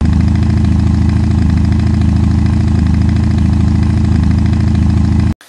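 Motorcycle engine idling loudly and steadily, with an even rapid firing pulse, cutting off suddenly just before the end.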